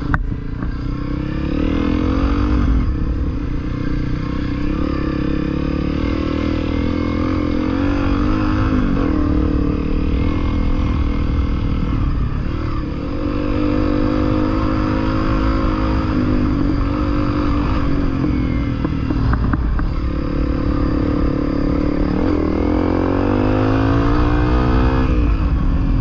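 Honda CRF250L single-cylinder four-stroke dual-sport motorcycle being ridden. The engine's pitch rises and falls several times with throttle and gear changes, over a steady low rush of noise.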